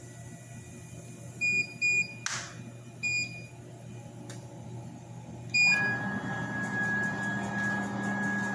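A CO2 laser cutting machine's control panel beeping four times as its keys are pressed, then, about two-thirds of the way in, the machine starting to run with a steady high whine over a low hum and rushing noise.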